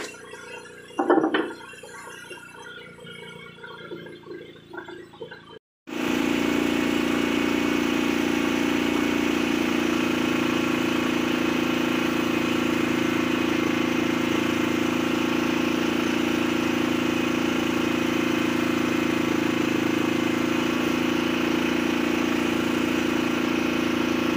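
A fishing boat's engine running steadily, cutting in abruptly about six seconds in. Before that come a few knocks on the wooden deck and one loud thump about a second in.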